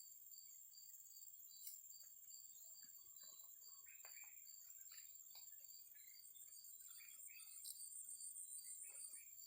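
Faint chorus of insects such as crickets: a steady high buzz with a regular pulsing chirp about three times a second, and a faster trill joining near the end. A few faint scattered rustles or knocks lie beneath.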